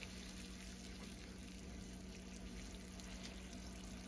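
Morel mushroom sauce boiling in a frying pan to reduce, a faint steady bubbling sizzle over a steady low hum.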